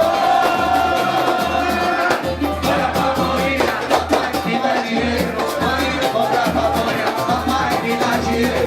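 Samba music with a singing voice over a steady, repeating bass pulse.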